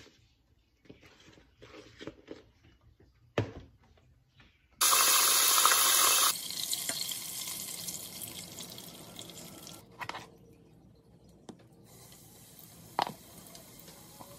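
Battered crab deep-frying in a pot of hot oil: a sizzling hiss that starts suddenly about five seconds in, is loudest for the first second and a half, then goes on quieter and slowly fades. Before it, only faint wet handling of the batter.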